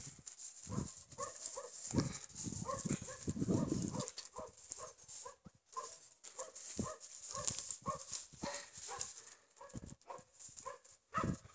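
A dog whimpering in short, repeated squeaks, about two or three a second.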